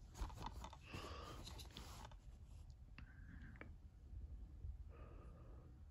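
Faint rustling and scraping of a Blu-ray case in a cardboard slipcover being handled and turned over, busiest in the first two seconds, with a couple of light clicks about three seconds in.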